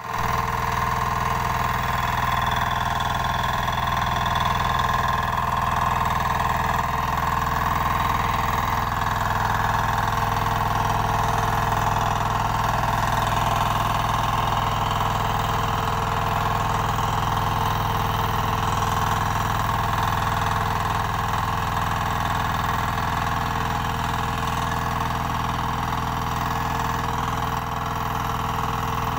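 Kirloskar 8 hp walk-behind tiller running steadily as its rear rotary tines till the soil.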